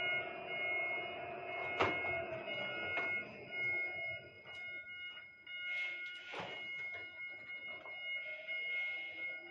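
Overhead crane heard from inside its cab: several steady high buzzing tones like a warning buzzer, over a lower motor whine that sags and fades after about two seconds. Sharp metallic clanks come about two seconds in and again about six and a half seconds in.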